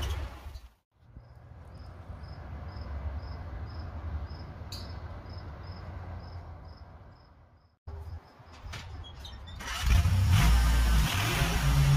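An engine running steadily, low and muffled, with a faint regular ticking about three times a second; it cuts off abruptly near the middle, and music comes in near the end.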